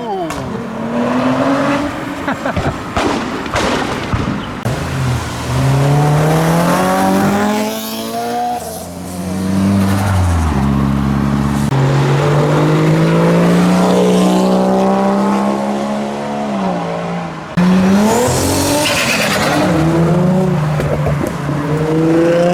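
Modified cars driving past one after another, their engines revving up and dropping back through the gears. One holds a long, slowly rising note in the middle, and there is an abrupt jump to another car about 17 seconds in.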